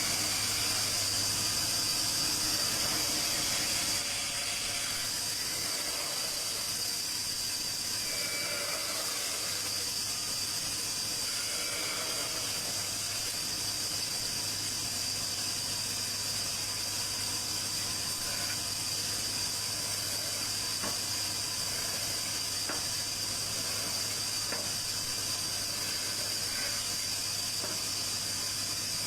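Steady high-pitched hiss over a constant low hum, with a few faint clicks.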